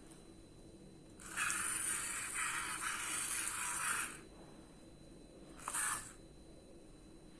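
Small electric drive motors of a home-built remote control car whirring as the car drives for about three seconds, then again briefly near the end.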